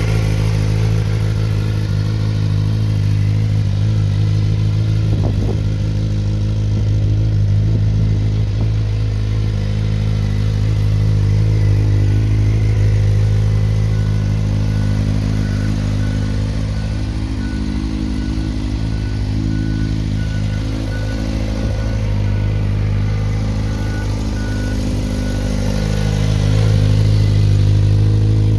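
2018 Suzuki GSX-R600's inline four-cylinder engine idling steadily through an SP Engineering carbon-fibre aftermarket silencer, a little louder near the end.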